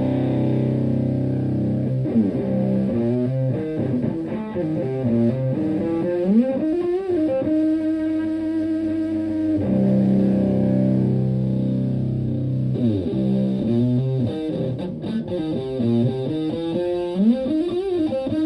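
Stratocaster electric guitar through an Elk Super Fuzz Sustainar, a Big Muff-type fuzz pedal, into a Fender Twin Reverb-style amp: a long-sustaining fuzzed chord, then a phrase of single notes with string bends. The same chord-then-bends figure comes round again about halfway through.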